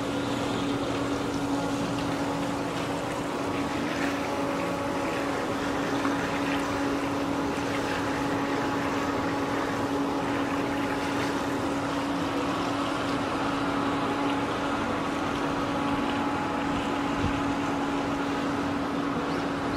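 Pool circulation pump humming steadily on one low note, over the constant rush of water spilling over the swimming pool's edge.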